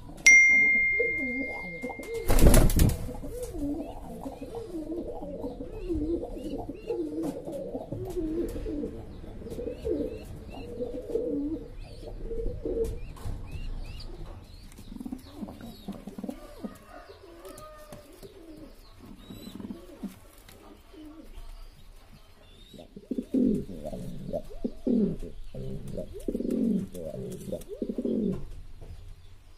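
Domestic racing pigeons cooing over and over in low, wavering calls, loudest near the end. A steady high beep sounds for about two seconds at the start, followed by a sharp loud thump, and faint high chirps come and go in the first half.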